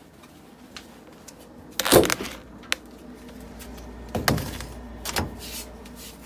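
Refrigerator door pulled open with a loud thump about two seconds in, followed by a steady low hum from the fridge. A couple of lighter knocks follow as plastic containers are set on the fridge shelf.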